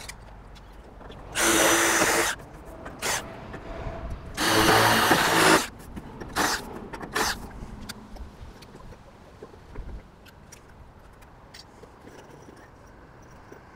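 Cordless drill driving roofing screws down through a steel barge capping into corrugated iron roof sheeting. There are two runs of about a second each with a steady motor whine, then a few short bursts as the screws seat.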